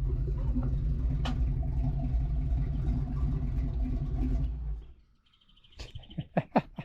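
1988 Mustang GT's 5.0 V8 idling with a lumpy cam, then switched off about four and a half seconds in. Birds chirp near the end.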